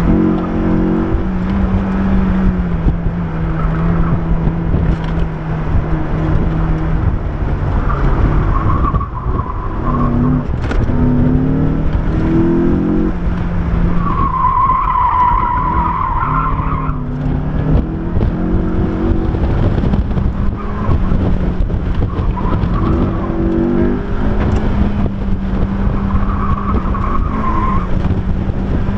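Honda S2000's 2.0-litre four-cylinder engine, heard from inside the open cockpit, being driven hard around an autocross course: revs rising and falling through the gears, with tyres squealing through the corners, loudest about halfway through.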